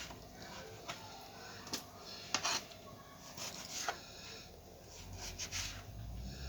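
A few faint, scattered clicks and taps of hands and a knife at work on cut lemons and oranges, with a low hum coming in near the end.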